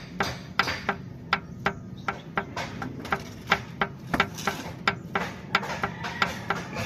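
A hand tool tapping on metal: repeated sharp knocks at an uneven pace, about two to three a second.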